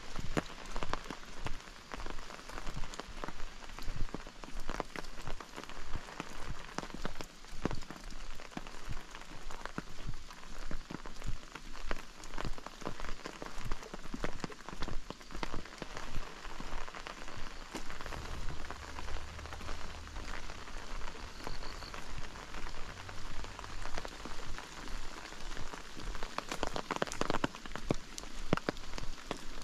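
Steady rain falling, with many sharp drop impacts close to the microphone, and footsteps of someone walking about twice a second.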